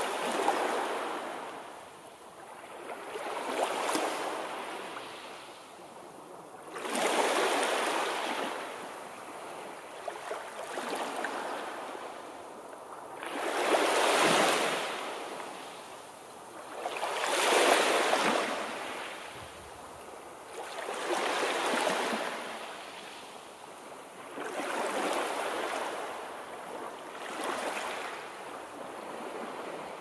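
Sea waves breaking and washing, a rushing surge that swells and fades about every three and a half seconds.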